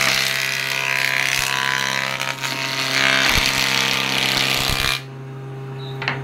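Electric jointer (surface planer) running with a steady motor hum while a board is fed over its cutterhead. A loud, dense cutting noise lasts about five seconds and cuts off suddenly as the board clears the cutters, leaving only the motor hum.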